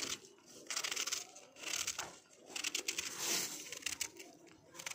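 A small kitchen knife shredding a head of raw cabbage held in the hand, each stroke a crisp crunching slice through the tight leaves; about five strokes, roughly one a second.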